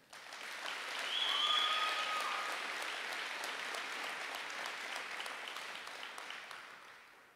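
Audience applauding for a graduate, building over the first second or so and tapering off toward the end. A single steady high tone, like a whistle, sounds over the clapping for about a second and a half, starting about a second in.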